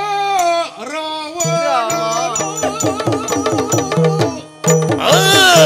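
Yakshagana music: a bhagavata's singing voice sliding between notes over a steady drone, with maddale drum strokes falling into an even beat about halfway through. Near the end the voice rises into a loud, high sung phrase.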